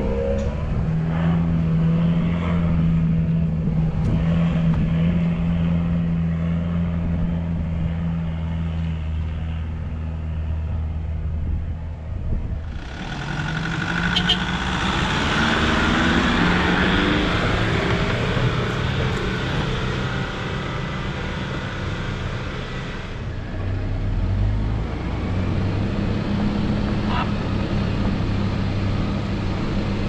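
Four-wheel-drive engines on a dirt track. First there is a steady low engine drone. Then, from about 12 to 23 seconds in, a 4WD drives close past with loud tyre and gravel noise over its engine. After that comes the steady drone of a 4WD driving, heard from inside the cabin.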